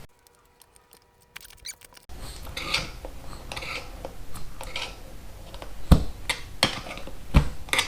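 A bead breaker being levered against the tubed front tire of a 2006 Harley-Davidson Ultra Classic to break the tire's bead from the rim. After about two seconds of near silence come scraping and clicking, with two sharp knocks near the end.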